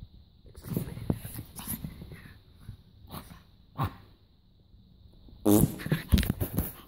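Fake farts blown with the mouth, answered by a small Petit Brabançon dog growling in protest at them. The sounds come in short bouts, the loudest near the end.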